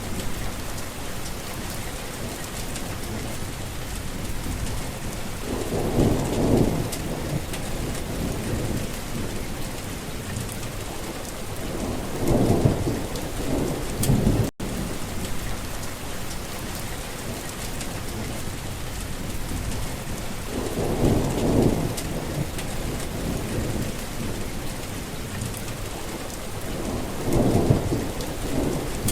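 Heavy rain falling steadily, with four low rolls of thunder, each lasting a second or two, spread through the storm. The sound cuts out for an instant about halfway through.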